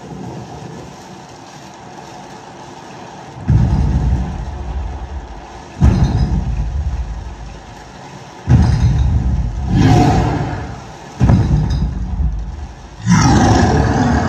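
Surround-sound demo soundtrack of vehicle engine sound effects. After a quieter opening, about six loud surges with heavy bass start abruptly and fade away, the first about three and a half seconds in.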